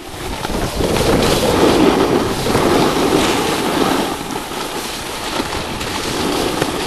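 Steady rushing of wind over the microphone, mixed with the scrape of snowboards sliding over packed snow while riding downhill at speed.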